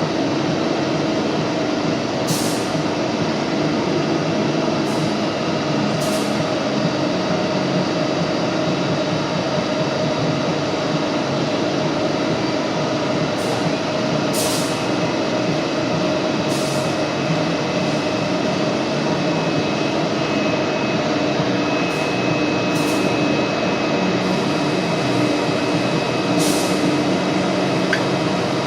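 Granulator machine running steadily, a loud constant mechanical hum and rumble with short high hisses every few seconds.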